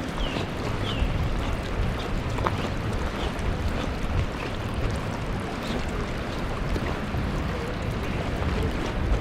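Mountain river water rushing steadily over rocks, a continuous noise with no breaks.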